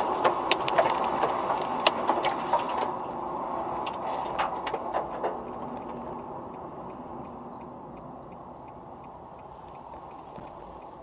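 Car driving on a motorway, heard through a dash cam: steady road and tyre noise, with a clatter of sharp clicks and knocks in the first three seconds and a few more about four and a half seconds in. The noise then fades gradually.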